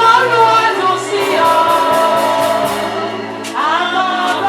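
Live gospel band music: a singer holds long, wavering notes over steady bass and keyboard, with cymbal strokes ticking along.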